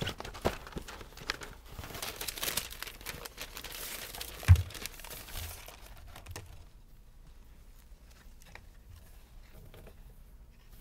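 Crinkling and rustling as a wig is handled and pulled on, with one loud thump about four and a half seconds in. After about six seconds the rustling dies down to faint scattered ticks.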